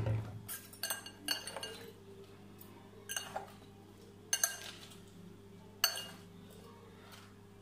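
Metal forks clinking against a clear glass salad bowl as a salad is tossed: a handful of scattered, sharp clinks with brief ringing. A dull thump sounds right at the start.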